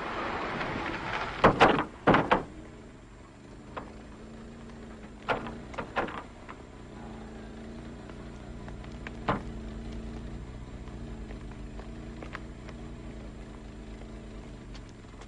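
A car comes to a stop, then its doors slam four times in quick succession, about one and a half to two and a half seconds in. Lighter door clicks and knocks follow, and the engine idles faintly underneath.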